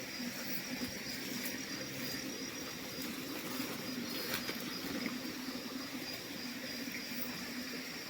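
Night insects trilling in a steady high-pitched chorus over a low background hum, with a couple of faint clicks.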